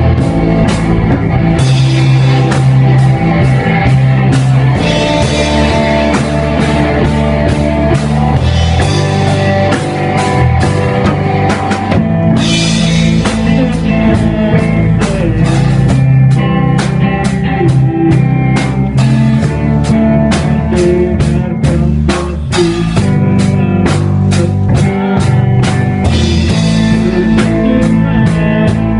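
Rock music played on drum kit and guitar, with a steady drum beat throughout.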